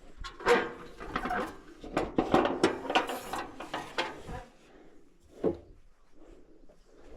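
A clatter of knocks, scrapes and rattles from hard, wood-like objects being handled, with one more knock about five and a half seconds in.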